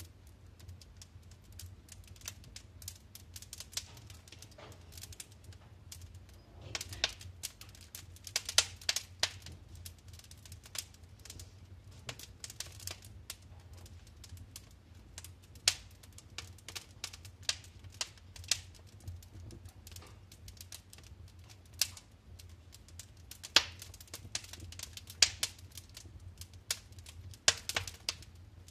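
Wood fire burning in a fireplace, crackling and popping with irregular sharp snaps, in thicker clusters at times, over a faint low hum.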